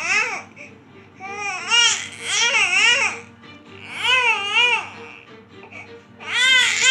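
Baby crying hard in a tantrum: repeated loud wails with a wavering, quavering pitch, broken by short pauses between cries.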